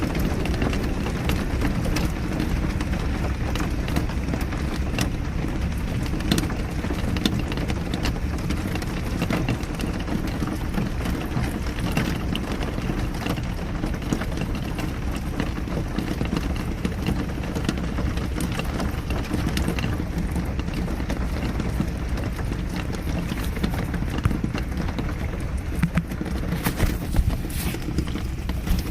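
Steady rain, a dense wash with a low rumble and many individual drops tapping sharply throughout.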